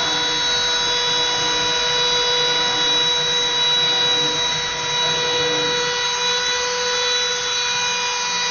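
Small homemade CNC router's rotary-tool spindle whining steadily at high speed as its bit engraves a plastic plate, with a lower hum from the axis drives coming and going as the table moves.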